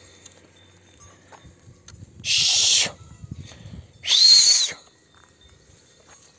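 A shepherd's two short, breathy whistled calls to his flock of sheep and goats, about a second and a half apart; the second carries a clear high note that dips away at its end.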